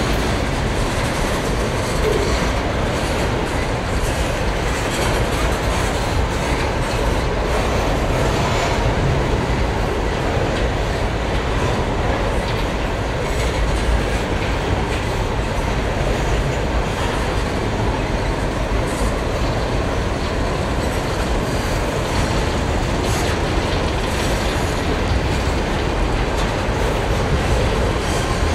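Freight train hopper wagons rolling past close by: a steady rumble of steel wheels on the rails, with repeated clicks as the wheels cross the rail joints.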